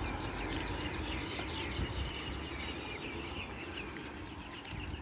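Small birds chirping repeatedly over steady outdoor background noise, with a few faint clicks.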